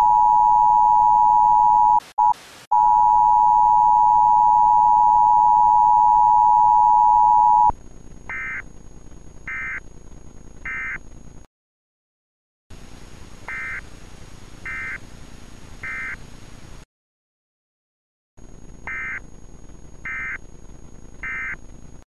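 Emergency Alert System broadcast signals. The steady two-tone attention signal, a loud tone near 1 kHz, drops out briefly about two seconds in and cuts off about eight seconds in. It is followed by three groups of three short, high digital data bursts over a low hiss, each group ending in a sudden silence.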